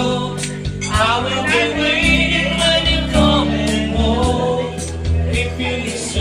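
A voice singing a slow song with vibrato over instrumental backing music that holds sustained bass notes.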